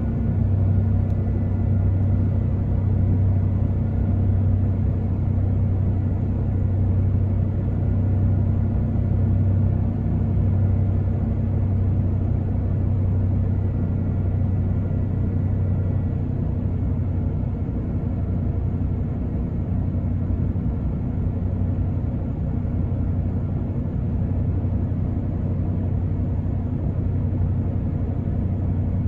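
1993 Ford Bronco Eddie Bauer's engine fast-idling steadily at about 1,300 rpm on a cold start, heard from inside the cab as a low, even running sound.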